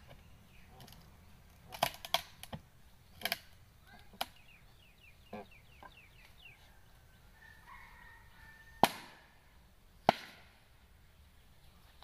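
Scattered sharp knocks of a hand tool striking the tree trunk at its chainsaw cut, the two loudest about nine and ten seconds in. Faint bird calls, including a quick run of chirps, come between the knocks.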